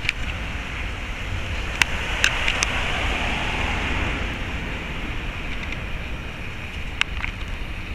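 Wind buffeting the microphone, a steady rumble with a hiss that swells and eases, broken by a few sharp clicks.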